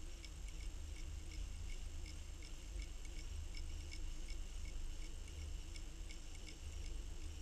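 Underwater microphone audio: a steady low rumble with faint, even ticking about two to three times a second.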